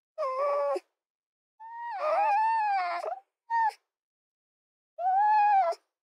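Red fox calls: four short, pitched, drawn-out cries with dead silence between them. The second is the longest, about a second and a half, dipping then rising in pitch; the third is very brief.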